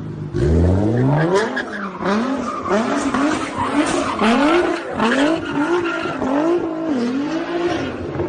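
Nissan GT-R's twin-turbo V6 revved hard about half a second in, then rising and falling in pitch about every three-quarters of a second as the car slides sideways through a donut, with tyres screeching on the asphalt.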